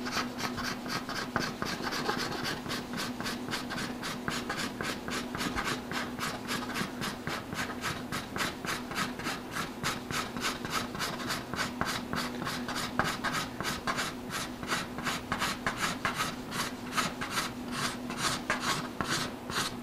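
Hand-held card scraper scraping dried epoxy flush on a wood panel, in quick, even strokes about three a second. A faint steady hum runs underneath.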